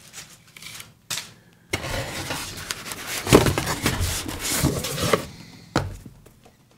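Cardboard boxes being handled on a wooden desk: a few light taps, then about three seconds of rustling and scraping with knocks as a box is slid out and set down, and one sharp knock about a second before the end.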